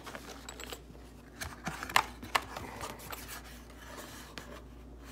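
A box of CO2 cartridges being handled, with a few sharp clicks and taps, the loudest about two seconds in, over a low steady hum.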